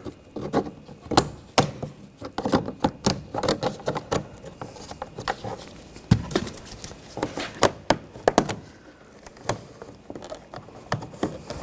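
Plastic trim tools prying at a clipped-in door trim panel: a string of irregular clicks, taps and knocks as the plastic clips work loose and the panel comes free.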